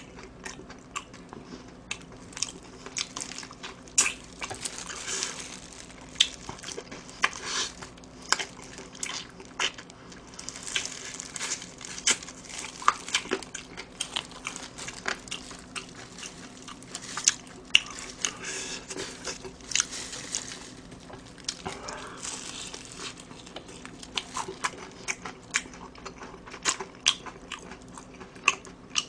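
Close-miked bites and chewing of a crispy fried chicken drumstick (BHC Curry Queen): irregular crisp crunches and crackles of the fried coating, scattered throughout.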